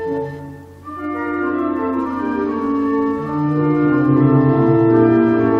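Organ music with held chords; a short lull about half a second in, then a new phrase with a low bass line coming in about three seconds in.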